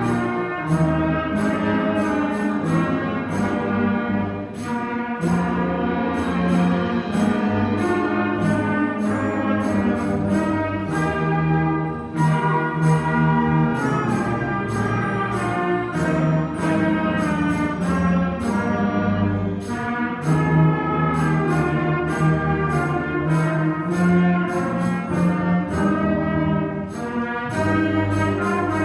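School concert band playing a holiday piece: sustained brass and wind chords over a steady percussion beat.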